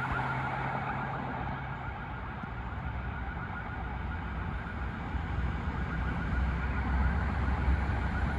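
Electronic siren of a fire service Dacia Duster emergency vehicle, a fast warble fading as it moves away after passing. A low traffic rumble swells about halfway through.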